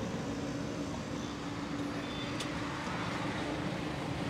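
Steady road traffic noise with a faint low hum.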